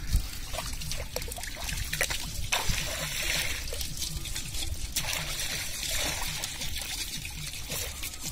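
A pot packed with small live fish and eel-like fish wriggling and flapping in shallow water, a continuous wet trickling and splashing made up of many small irregular slaps, busiest in the middle.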